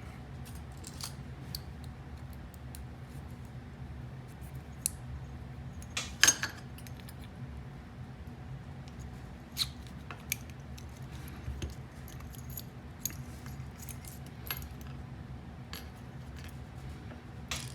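Scattered small metallic clicks and taps of a padlock being taken apart by hand, its core and pin parts worked loose with small tools, the sharpest click about six seconds in.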